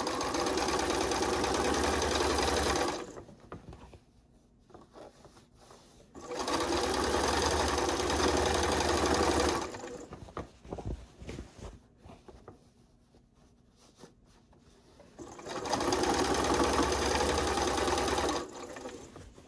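Electric sewing machine stitching quilt binding down in three runs of about three seconds each, stopping in between while the fabric is turned around a corner. Soft fabric handling and light clicks fill the pauses.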